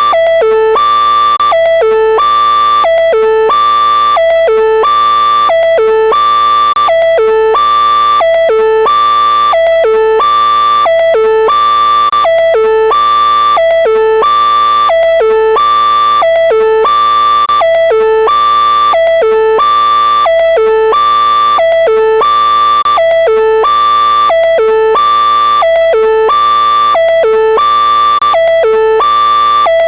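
Synthesized electronic alert tone, a short figure of three pitched notes looping over and over about every second and a half, steady and loud.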